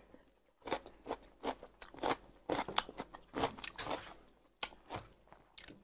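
Close-up chewing of a bite of fresh cucumber: a run of short, irregular crunches.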